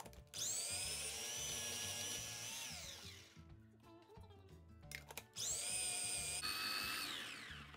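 Electric mini food chopper run in two pulses of a couple of seconds each, chopping green chillies, garlic and ginger with a little minced meat. Each pulse is a motor whine that rises as the blade spins up, holds steady and falls away as it stops.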